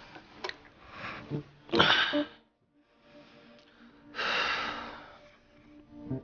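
A person's loud, heavy breaths: a short one about two seconds in and a longer one a couple of seconds later, over soft background music.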